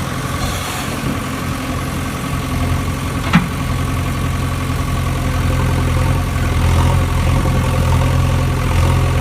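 An engine idling steadily with an even hum, and one sharp click about a third of the way through.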